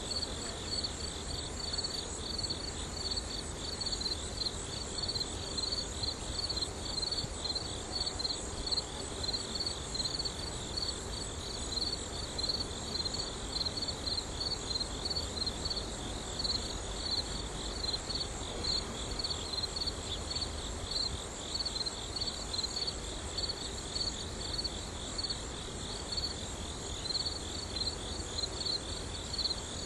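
Insects chirping in a steady, fast pulsing trill, high-pitched and cricket-like, unbroken throughout.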